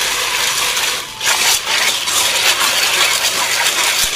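Snail shells clattering against each other and the metal pot as a hand scrubs them in water, with water sloshing: snails being washed before cooking. The scrubbing pauses briefly about a second in.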